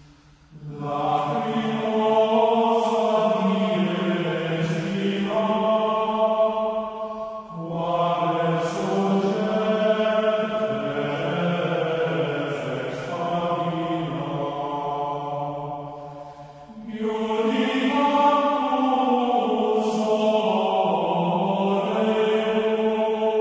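Plainchant sung by a group of voices in long, held phrases, with brief pauses between phrases about a third and two-thirds of the way through.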